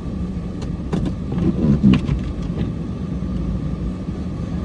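Pickup truck's Cummins diesel engine running steadily with a low rumble, with a few short knocks and clunks about one to two seconds in.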